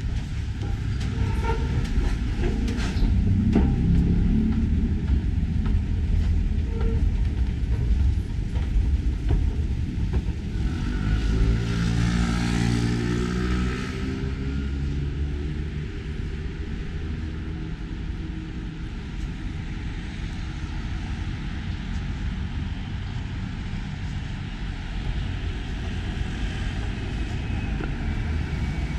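Road traffic rumbling steadily, with one louder vehicle passing about twelve seconds in.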